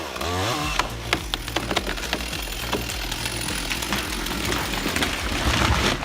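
Chainsaw work on a large cedar, with many sharp snaps and cracks of wood, over background music with a deep, stepped bass line.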